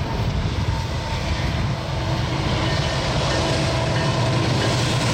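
Union Pacific diesel-electric locomotives leading an intermodal train approach, their engines making a steady low rumble that slowly grows louder as they near.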